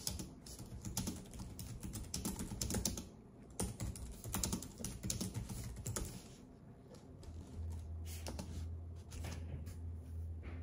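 Irregular, quick taps of fingertips on a smartphone touchscreen, typing and tapping through menus, picked up through the phone's own body. A low hum comes in during the last few seconds.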